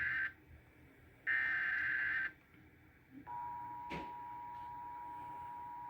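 Emergency Alert System signal for a severe thunderstorm warning: the end of one and then another one-second burst of digital SAME header data, followed about three seconds in by the steady two-tone attention signal. A brief click sounds soon after the tone starts.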